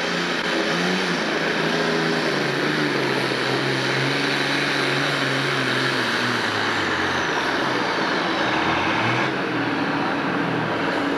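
Pro Stock pulling tractor's diesel engine running flat out under load as it drags a weight-transfer sled, pouring black smoke. Its pitch sags about halfway through and climbs again near the end.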